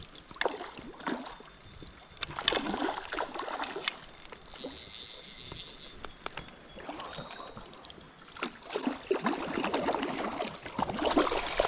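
Water splashing and sloshing in irregular bursts as a large hooked brown trout, about 19 inches, thrashes at the surface close to the angler, shaking its head against the line. The splashing is heaviest near the end.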